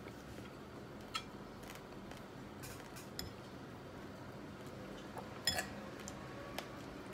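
Metal eating utensil clinking against a plate as food is scooped, a few scattered sharp clinks with the loudest a little over five seconds in.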